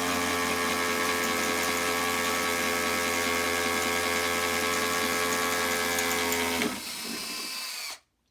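Handheld electric drill's motor running at a steady high speed with a whine, then released about six and a half seconds in and winding down to a stop.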